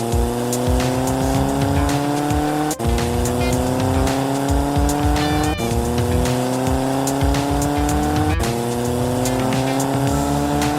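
Race-car engine sound accelerating through the gears: the pitch rises steadily, drops sharply at each shift about every three seconds, and climbs again, over music with a low beat.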